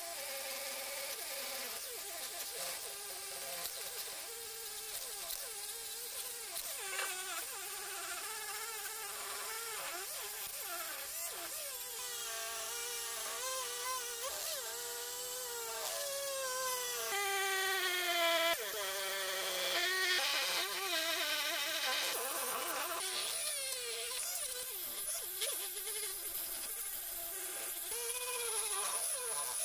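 Handheld rotary tool spinning a small brass wire wheel against pressed-steel toy parts, scrubbing off rust: a high buzzing whine over a steady scratching hiss, its pitch wavering and dipping briefly a little past halfway.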